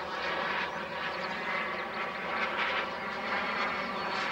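Miniature gas-turbine engine of a radio-controlled de Havilland Vampire model jet running steadily in flight overhead, a jet rush with a thin high whine.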